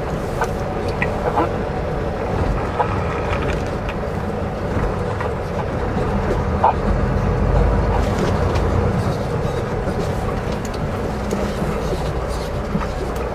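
Semi truck's diesel engine running steadily at low speed, heard from inside the cab, with small rattles and clicks over it.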